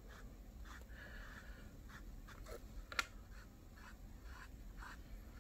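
A small paintbrush stroking paint onto a stretched canvas: a series of soft, faint scratchy brush strokes, with one sharp click about three seconds in.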